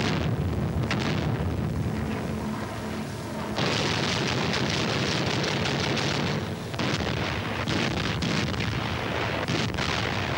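Battle soundtrack of explosions and gunfire for air-attack footage. A low drone runs for the first few seconds, then about three and a half seconds in a dense, continuous run of blasts and shots sets in.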